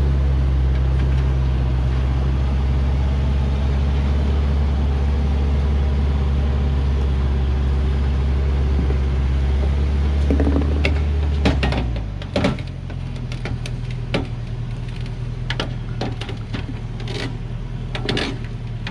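Hoa Mai truck's diesel engine running low and steady under load as the log-laden truck creeps down a dirt slope. About twelve seconds in the engine note drops away, and scattered sharp clicks and crunches follow.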